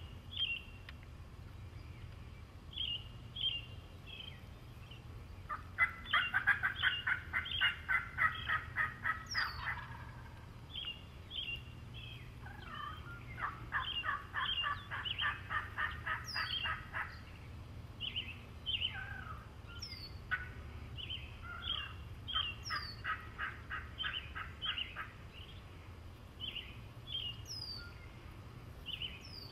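Wild turkey gobbler gobbling three times, each a loud, rapid rattling run lasting a few seconds. Small songbirds chirp throughout, and a high downslurred whistle repeats every few seconds.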